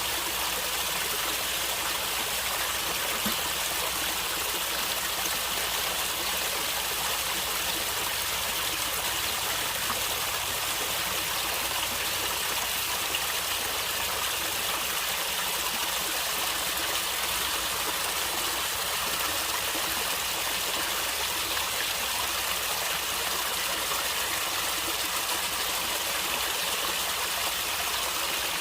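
A natural stream of water flowing and gurgling, a steady hiss of running water that doesn't change.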